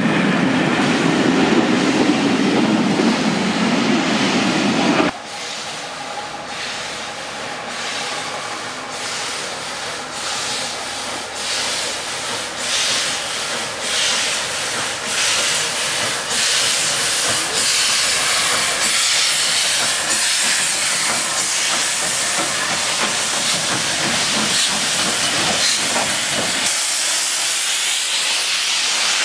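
Railway coaches rumbling past at close range. After an abrupt cut, a steam locomotive, a Somerset & Dorset 7F 2-8-0, hisses steam with a regular beat about once a second, the hiss growing louder and then holding steady.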